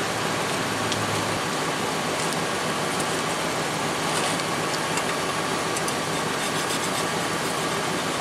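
Steady, even mechanical noise, like a machine or air-conditioning unit running, with a faint steady tone in it.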